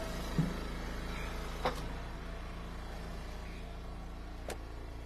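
Eastonmade Ultra hydraulic log splitter's small gas engine running steadily. Over it come a dull thud about half a second in and two sharp knocks of hickory pieces, near two seconds and four and a half seconds in.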